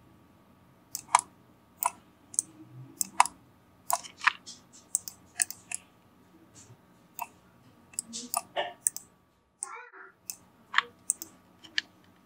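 Computer mouse clicking: sharp single clicks at an irregular pace, some in quick pairs.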